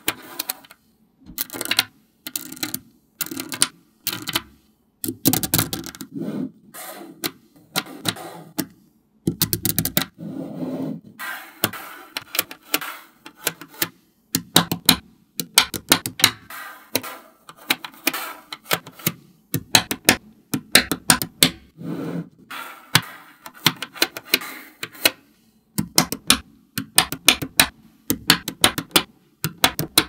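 Small magnetic balls clicking and snapping together in rapid clusters, with short pauses between, as they are set into a structure.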